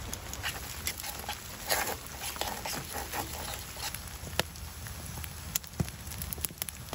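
French fries frying in oil in a pan over a campfire: a steady sizzle with irregular spits and pops.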